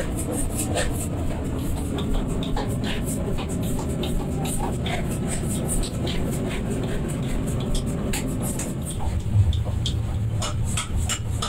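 Steady low rumble of running workshop machinery with many light, irregular clicks and clinks over it, and one louder knock about nine seconds in.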